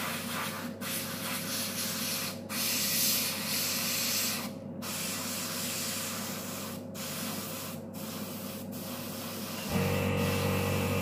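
Airbrush spraying black nail paint through a stencil onto nail tips: a steady air-and-paint hiss, broken by several brief pauses as the trigger is let off. Near the end a steady hum comes in.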